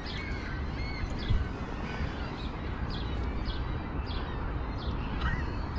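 A small bird chirping over and over in short, high notes, with a steady low rumble underneath.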